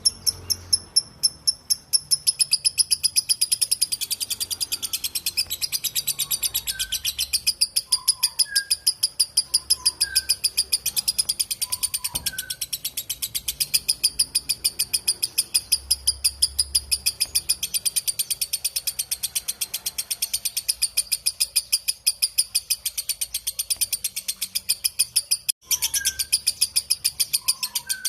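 Lovebird 'ngekek' chatter: a long, unbroken run of rapid, high, sharp notes, about seven a second, pausing briefly near the end before starting again. Faint lower chirps sound now and then beneath it.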